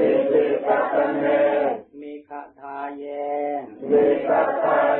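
Buddhist chanting in Pali in call and response: a congregation chants a phrase together, a single voice leads the next phrase, and the congregation takes it up again near the end.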